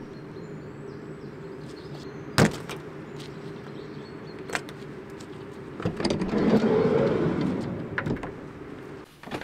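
A sharp snap about two and a half seconds in as the cable ties on the Transit van's sliding-door handle are cut. Then, from about six to eight seconds, the van's side sliding door unlatches and rolls open with a rumble. A steady low hum runs underneath and stops near the end.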